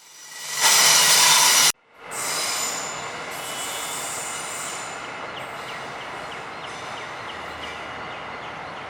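A train's brakes squealing: a loud, high-pitched ringing squeal for about a second that cuts off abruptly. It is followed by steady rumble from the rolling train, with fainter squealing and a few light clicks.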